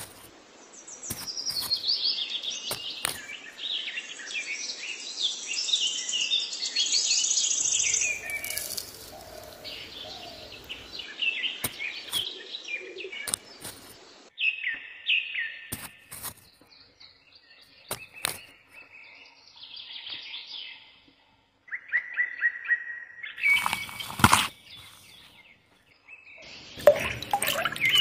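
Small birds chirping and singing in quick, high twittering phrases, with scattered light clicks and scrapes, and a louder knock or clatter about three quarters of the way through.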